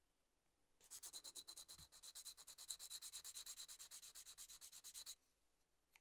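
Sanding stick rubbed quickly back and forth over the glued seam of a plastic model exhaust part to smooth it. About nine short strokes a second, starting about a second in and stopping about five seconds in.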